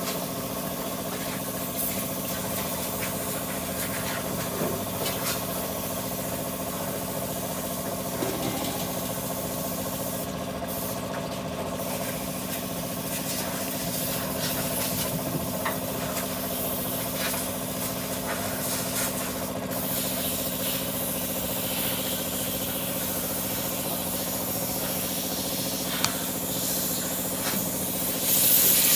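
A motor-driven machine hums steadily with a few fixed tones, and small clicks sound now and then. Near the end, a loud spray hiss starts abruptly.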